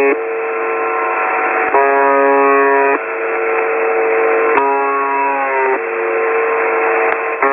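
Emergency alert alarm: a buzzy lower tone and a plainer higher tone take turns about every one and a half seconds, over a steady radio-like static hiss. The buzzy tone dips in pitch as it ends about five seconds in.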